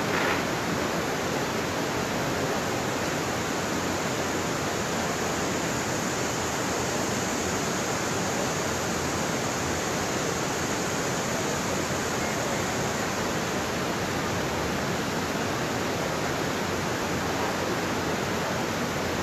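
Steady rush of river water pouring over a low waterfall and tumbling through rocky rapids.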